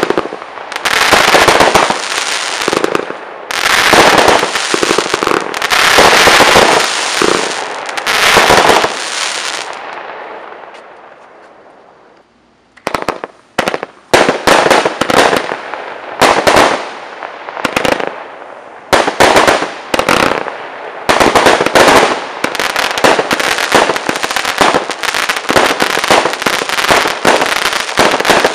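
Weco Wolfpack consumer firework going off: dense clusters of rapid bangs and crackling for about nine seconds, fading away to near quiet around twelve seconds in. Then a fast run of sharp bangs starts up again and keeps going to the end.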